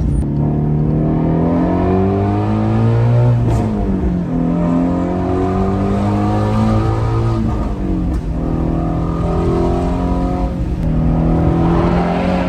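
Shelby GT350's 5.2-litre flat-plane-crank V8 pulling through the gears: the revs climb, drop sharply at a shift about three and a half seconds in, climb again, and shift again about eight and eleven seconds in.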